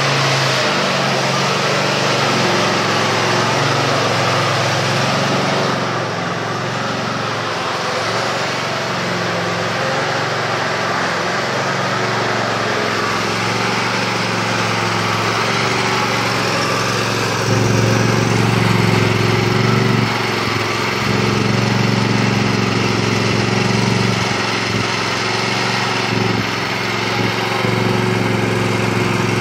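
Riding lawn mower's small engine running steadily. It dips slightly for a couple of seconds and gets a little louder just past halfway.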